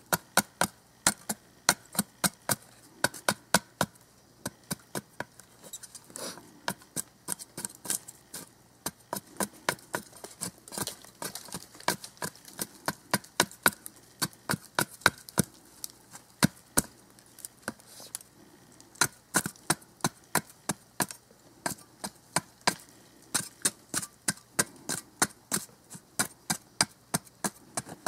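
Sharpened edge of a Cold Steel Special Forces shovel shaving curls down a dead stick to make a feather stick: a steady run of short, sharp cutting strokes, about three a second.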